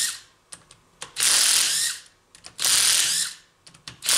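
Ratchet wrench worked in short bursts, about one every second and a half, undoing the fasteners of a hydraulic motor to open it up.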